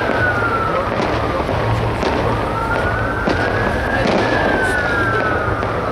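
Fireworks crackling and banging, with a wailing siren slowly rising and falling in pitch behind them.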